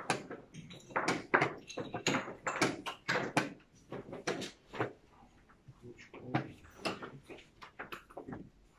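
Quick taps and clacks of chess pieces set down on the boards and chess clock buttons pressed in fast blitz play, several knocks a second with short lulls between moves.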